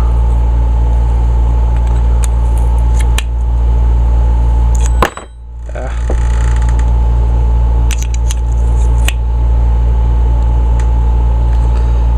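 Air conditioner running with a steady low hum, over which a wrench makes a few sharp metal clicks and taps while loosening a stiff carburetor bowl bolt. About five seconds in, right after a sharp click, the hum dips sharply and swells back over about a second.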